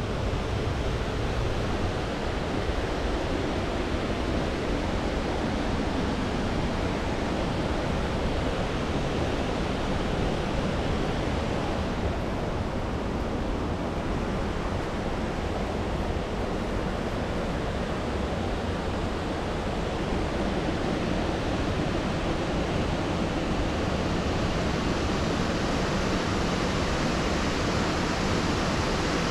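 Waterfall's falling water rushing steadily, an even, unbroken hiss.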